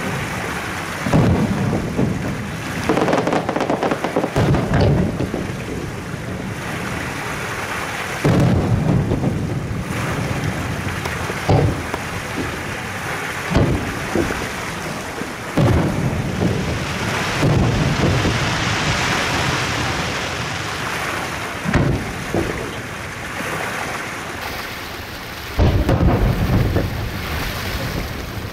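Aerial fireworks shells bursting, a deep boom with a rumbling tail every one to three seconds, over a continuous crackling hiss of burning sparks.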